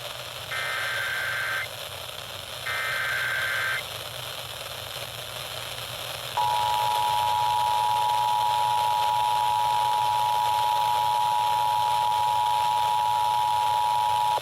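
Emergency Alert System header: two one-second bursts of SAME data tones a second apart. About six seconds in, the steady two-tone EAS attention signal starts and holds for about eight seconds, all over a steady hiss.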